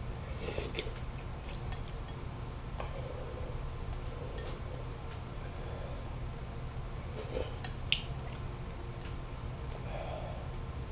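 A person eating noodles with chopsticks: slurping and chewing, with scattered light clicks of chopsticks against a ceramic bowl, the sharpest about eight seconds in, over a low steady hum.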